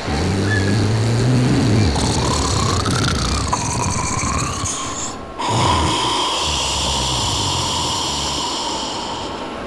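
A man snoring: two long, low snores, broken by a short pause about five seconds in.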